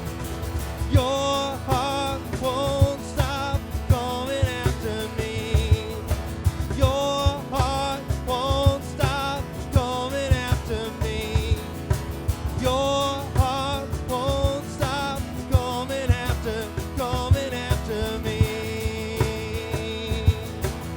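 Live worship band playing an instrumental passage: a drum beat under a melodic lead line of short, bending notes, with no sung words.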